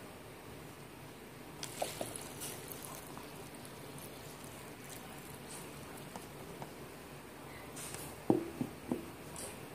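A jar handled on a table: faint rustling and small clicks, then three quick knocks near the end, the last two ringing briefly.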